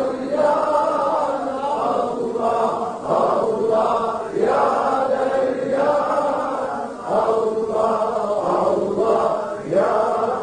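Sufi vocal dhikr (cehri zikir): male voices chanting the name of God aloud in short, rhythmic, repeated phrases.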